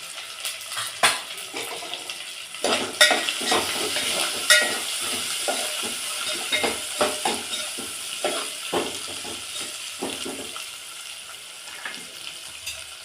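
A tempering of onion, green chillies and curry leaves sizzles in hot oil in a pan while a spoon stirs it, with repeated sharp clicks and scrapes of the spoon against the pan. The sizzle eases a little near the end.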